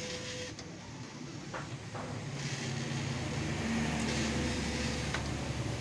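Desktop vinyl cutting plotter running while it cuts sticker vinyl, its carriage and feed-roller motors whirring steadily. The motor hum grows louder about halfway through.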